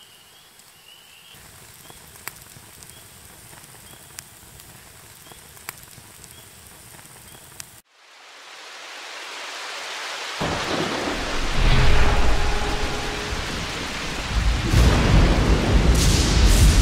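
Campfire crackling faintly with a few sharp pops, then a sudden cut to a rain-and-thunder sound effect: rain rises in, and heavy rolls of thunder come in about ten seconds in and build toward the end.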